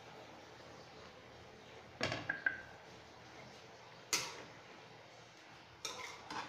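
A pan of chicken adobo being handled and stirred. About two seconds in there is a clatter with a brief ring as the glass lid is set aside. About four seconds in a metal spoon gives a sharp clack against the nonstick wok, and near the end there are scraping clinks of stirring, all over a soft steady hiss from the simmering pan.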